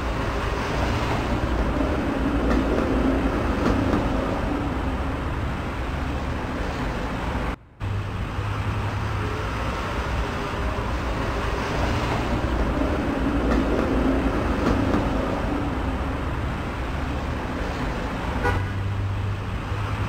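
Steady road and tyre noise of a car driving on a snowy highway, heard from inside the cabin, with a low engine hum underneath. The sound drops out for a split second about a third of the way through.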